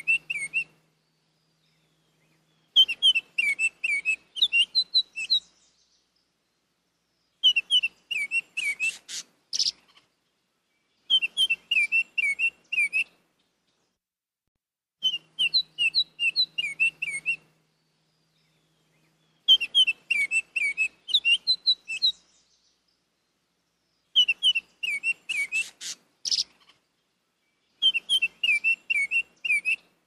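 Northern oriole singing: phrases of quick whistled notes, each lasting two to three seconds, repeated about every four seconds with silent gaps between.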